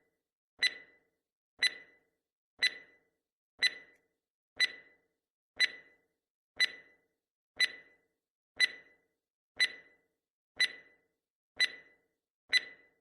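Countdown beeps to a missile launch: a short, high electronic beep repeated exactly once a second, thirteen times, each ringing out briefly.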